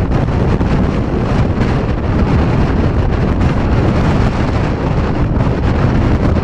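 Strong wind buffeting the microphone: a loud, steady rush of noise, heaviest in the low end.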